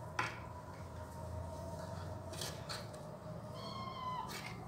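Cats playing: a single short, high-pitched meow about three and a half seconds in, dropping in pitch at its end. Around it, a few sharp clicks, the loudest just after the start.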